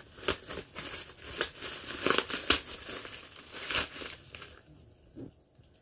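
Thin plastic bag crinkling and rustling as it is handled, in irregular bursts that die down about four seconds in.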